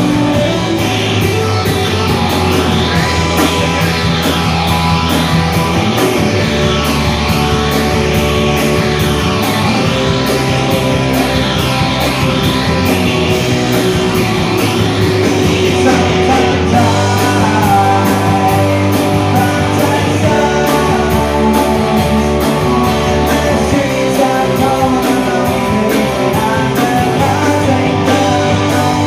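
Live rock band playing: electric guitars and drums, with a man singing into a microphone.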